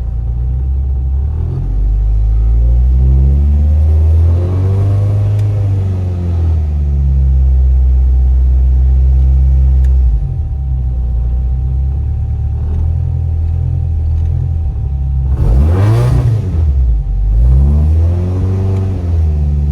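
Toyota Corolla TE72's engine running and revving, its pitch climbing and falling back three times: twice near the middle and end in quick succession, once earlier and more slowly. A faint steady whine runs under the engine.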